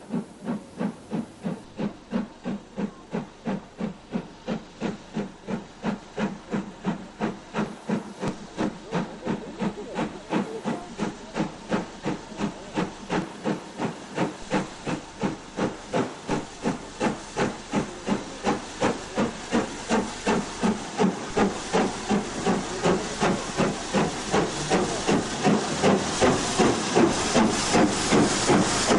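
Steam locomotive exhaust from BR Standard Class 7 Pacific No. 70000 Britannia's two outside cylinders, beating steadily at about two and a half chuffs a second with a steam hiss. It grows louder over the second half as the engine draws near.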